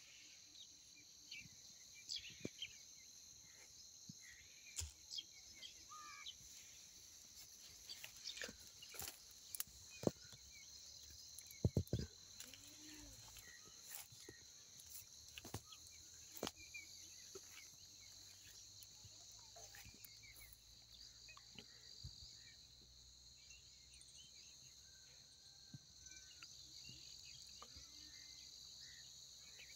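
Faint outdoor ambience: a steady high-pitched insect chorus, with a few scattered bird chirps and sharp clicks, the loudest about ten to twelve seconds in.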